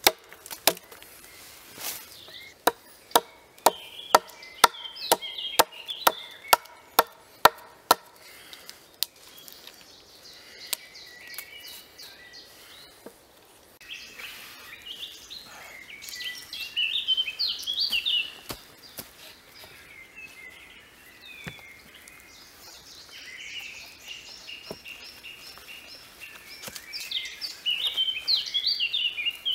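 An axe chopping into a green log with a steady run of sharp blows, about two a second, stopping about eight seconds in. Birds singing in the woodland take over after that.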